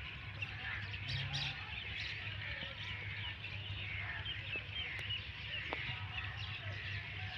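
Many small birds chirping together in a busy, overlapping chorus, over a steady low hum.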